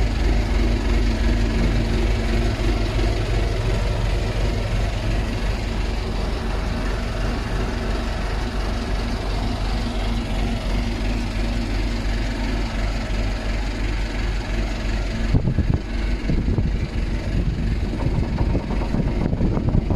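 An engine running steadily at a low idle-like pitch; about three-quarters of the way through it turns rougher and less even.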